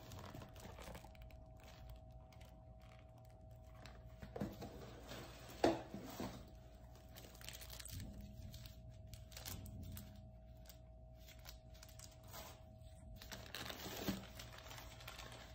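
Gloved hands rummaging through a cardboard box of plastic-bagged clothes: soft crinkling of plastic bags with light clicks and taps. A sharper knock comes about six seconds in and another near the end.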